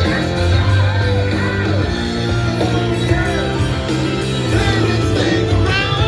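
Rock song playing, with singing over guitar, bass and drums.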